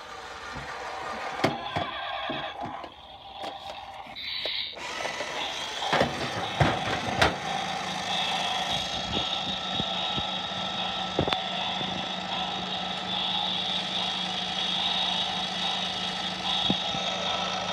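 Adventure Force Motorific toy Dodge Viper playing its electronic engine sound effect through its small speaker, settling into a steady running sound from about five seconds in. Clicks and knocks of the toy being handled come in the first seven seconds.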